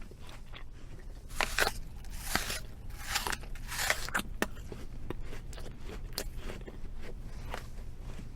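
Close-up chewing of crunchy food: irregular crisp crunches and crackles, loudest and densest from about one to four and a half seconds in, over a faint low hum.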